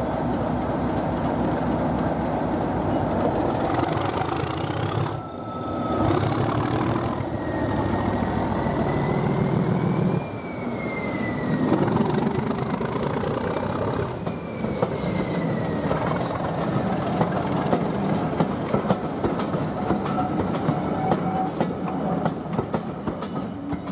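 A Class 37 diesel locomotive's engine running as the train moves off, then train wheels squealing with a high, wavering squeal. Near the end comes a regular clatter of wheels over rail joints.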